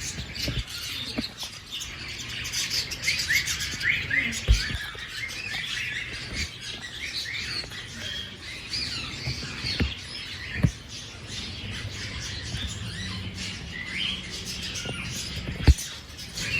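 A flock of small aviary birds chirping and squawking continuously with many short, overlapping chirps. Three sharp low thumps come about 4.5, 10.7 and 15.7 seconds in.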